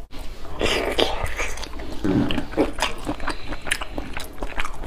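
Close-miked mouth sounds of a person eating sweet-and-spicy marinated shrimp: wet chewing with many sharp smacks and clicks.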